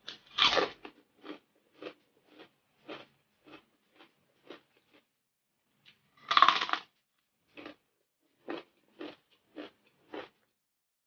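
Crunchy bites into crispy deep-fried pork, loud twice (about half a second in and again about six seconds in), each followed by crisp chewing at about two chews a second.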